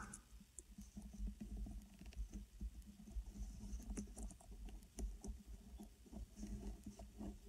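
Faint, irregular small clicks and taps of hands working fine resistance wire and small metal parts on a vape tank's rebuildable (RBA) coil deck while a coil is built.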